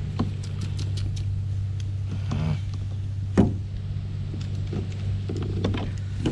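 Steady low hum of a small motor, with light clicks and one louder knock about three and a half seconds in.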